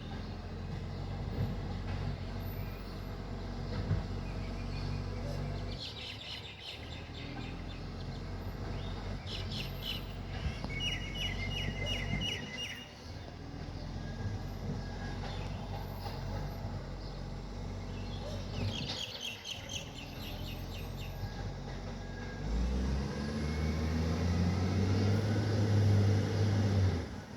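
Iveco ACCO garbage truck's diesel engine running with an exhaust leak, a steady low hum that swells and rises in pitch about three-quarters of the way through and is loudest near the end. Birds chirp in quick repeated series over it several times.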